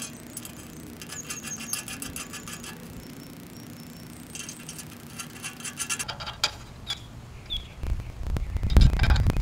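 A metal wrench clicking and scraping on the nuts at the base of a cast aluminum mailbox post as they are run down, in two runs of rapid clicks. A few separate clicks follow, then a loud low rumble near the end.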